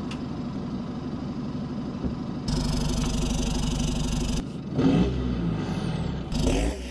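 Chevrolet Colorado ZR2's 2.8-litre Duramax four-cylinder turbodiesel running through a short vertical hood-stack exhaust topped with a tractor flap. It runs steadily, then is louder and rougher for about two seconds in the middle.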